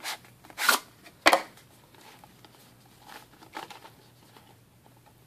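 A small knife box being handled and opened by hand: a few short scrapes and a sharp click in the first second and a half, then quieter rustling of the packaging.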